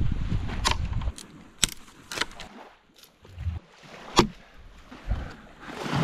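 Dry driftwood sticks being snapped and broken by hand: five or so sharp cracks spaced about a second apart, after a low rumble in the first second.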